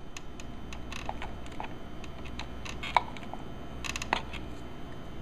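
Small plastic clicks and taps as a motorcycle turn signal's plastic lens is worked loose from its housing by hand. There is a sharper click about three seconds in and a quick run of clicks a second later.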